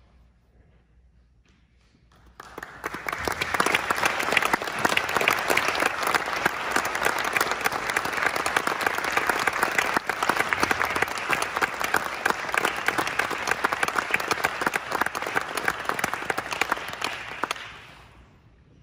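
Audience applauding, starting about two seconds in after a quiet pause, holding steady, then dying away near the end.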